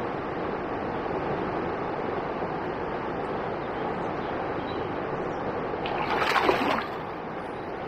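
A steady rushing background from the high river, then about six seconds in a loud splash, under a second long, as a pike grabs a twitched deadbait at the surface and goes back down.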